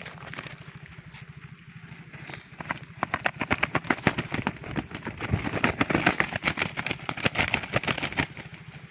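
A shot junglefowl beats its wings against dry grass and leaves in its death struggle: a rapid, irregular flurry of flapping and rustling that starts about three seconds in and stops just before the end.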